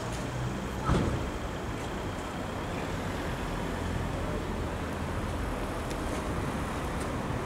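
Steady road traffic rumble, with a single sharp knock about a second in.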